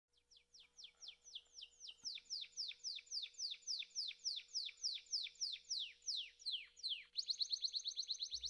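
A bird singing a long series of clear whistled notes, each sliding downward, about four a second and growing louder, then switching about seven seconds in to a faster run of shorter, higher notes.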